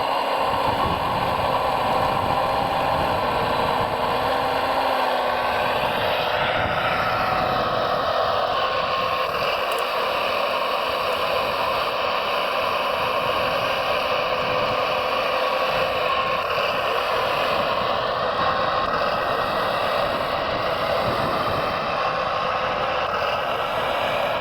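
Electric motors and gearing of radio-controlled scale-model construction machines running, a steady whine of several tones over a mechanical clatter, gliding up in pitch about six seconds in as the load on the motors changes.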